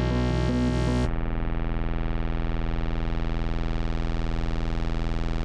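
Synthesizer score: held synth notes shifting in pitch, which give way about a second in to a dense, steady buzzing synth tone with a fast even pulse.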